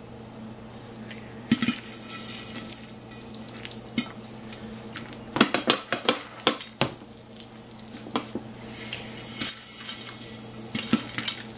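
Popcorn kernels popping in hot oil inside a covered pot with a glass lid, as scattered sharp pops over a steady sizzle: the early stage of popping, just a few kernels going at a time. Around the middle the pot is shaken on the burner, and the kernels and lid rattle.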